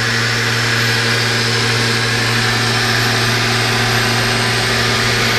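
Citizen M16 CNC Swiss-type lathe running at close range, its gang-tool slide and live tools working: a steady hum with a few fixed tones over an even hiss. The ball-screw drives are very quiet, which the inspector takes as a sign they are in excellent condition.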